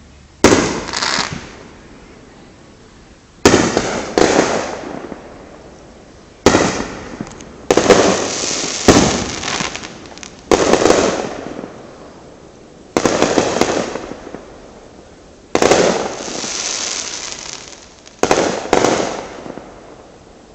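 Aerial firework shells bursting: about nine sharp booms a couple of seconds apart, each dying away in an echo, several with a second bang close behind.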